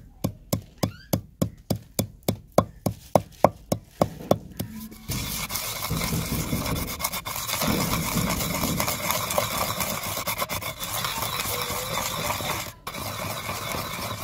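A pestle pounding dried red chillies and coriander seeds in a stone mortar, at about three strikes a second. About five seconds in it changes to a steady grinding scrape as the pestle is rubbed round the bowl, with a brief break near the end.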